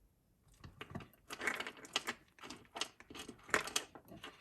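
Irregular light clicks and tapping of jewelry pliers handling a small metal jump ring and spring clasp.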